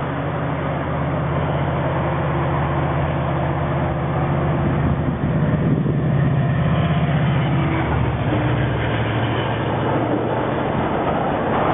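Commuter train passing close by: the leading diesel locomotive's engine drones steadily, loudest about halfway through, over the rumble of bilevel passenger coaches rolling on the rails.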